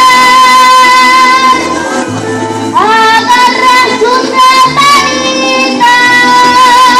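A young girl singing a Venezuelan llanero song to instrumental accompaniment. She holds a long note, sings a short phrase of sliding notes, then holds another long note near the end.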